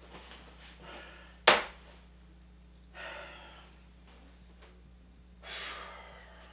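A single sharp thump about a second and a half in, then a man breathing out heavily twice, once about three seconds in and again near the end, over a low steady hum.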